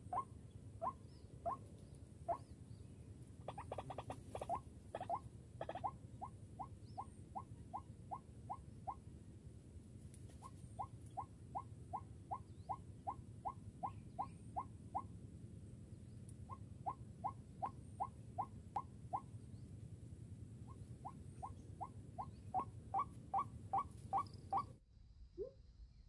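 White-breasted waterhen calling: a quick, even series of short rising 'kru-ak' notes, about four a second, in runs broken by short pauses, with a few clicks a few seconds in. The sound cuts off abruptly near the end.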